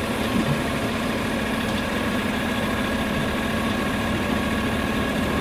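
Lifted GMC Sierra pickup's engine idling steadily.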